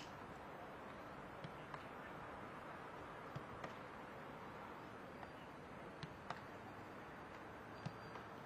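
Faint steady open-air hiss broken by a handful of sharp thuds, several in quick pairs, of footballs being kicked and caught in goalkeeper gloves.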